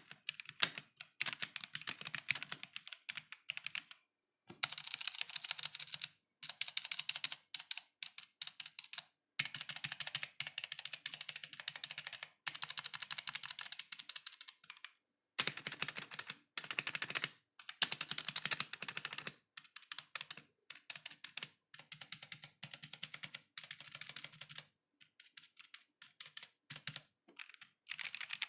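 Typing on a stock K66 mechanical keyboard with Gateron Black linear switches: fast runs of key clacks broken by a few short pauses.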